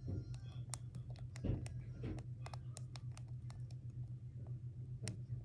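Golden hamster chewing a snack close to the microphone: quick, irregular crisp clicks of crunching, over a steady low hum.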